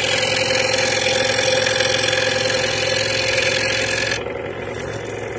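Scroll saw running steadily, its reciprocating blade cutting through a thin wooden board to finish a tight internal V-turn. The higher hiss of the cut drops away about four seconds in while the saw keeps running.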